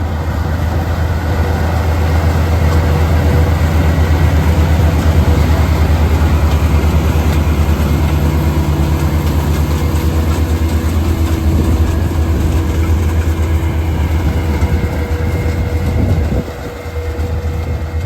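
Large diesel farm machinery running steadily, a deep engine rumble with mechanical noise over it. It fades in at the start and drops in level about sixteen seconds in.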